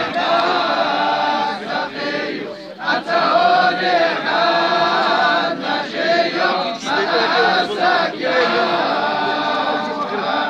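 A large group of men chanting devotional praise of the Prophet Muhammad together, without instruments. They pause briefly about two and a half seconds in, then carry on.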